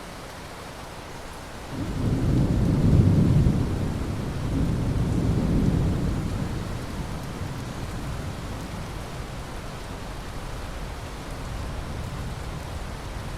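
Steady rain with a roll of thunder that breaks in sharply about two seconds in, swells twice and rumbles away over the next several seconds while the rain goes on.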